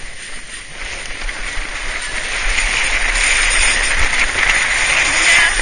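Sledge sliding over packed snow while towed behind a car: a steady hissing, scraping rush that grows louder as it picks up speed.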